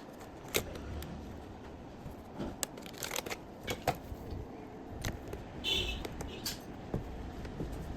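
Irregular small clicks and light rattles from hands handling laptop parts and tools, over a low rumble. A brief higher-pitched scrape comes about six seconds in.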